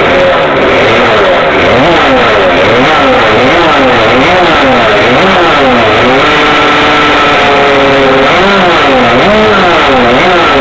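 Casal 50cc two-stroke rotary-inlet racing engine on its first startup, revved up and down about once a second. About six seconds in it holds at a steady higher speed for a second or so, then the revving up and down resumes.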